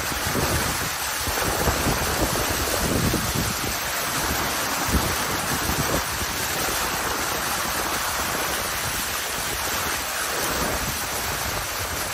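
Strong storm wind buffeting the microphone: a steady rushing hiss with irregular low rumbling gusts.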